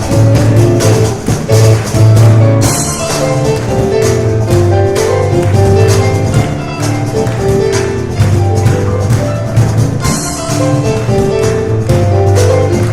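Piano and cajón playing a fast, driving instrumental: rapid piano runs over busy cajón strokes with a heavy low thump.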